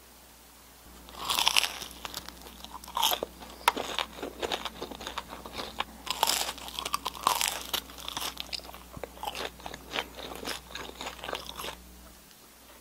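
Someone biting into and chewing crispy fried churros coated in cinnamon sugar: several loud crunching bites with crackly chewing between them, starting about a second in.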